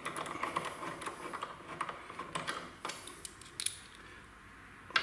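Light metallic clicks and rattles from Allen bolts and a hex key being handled and threaded into a scooter's front brake caliper. The clicks are irregular and quick at first, then fewer and fainter after about three seconds.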